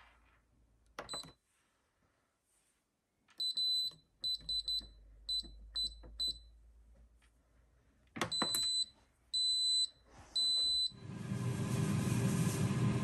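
Instant Pot Pro Crisp pressure cooker's control panel: a few button clicks, then a quick run of short high beeps as the dial is turned to set the pressure-cook time, then three longer beeps as the program is started. About eleven seconds in, a steady hiss with a low hum starts and grows louder.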